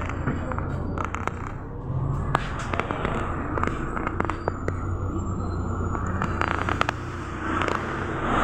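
Cabin sound of a moving MAZ-107 city bus: a steady low engine and drivetrain drone with road noise, broken by many sharp rattling clicks from the body. The noise swells near the end.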